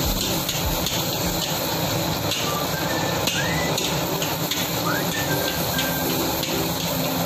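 Crushed garlic sizzling in hot oil in a large aluminium wok, steady and hissing, as a spatula stirs it. A looped background tune of short chirping notes plays over it.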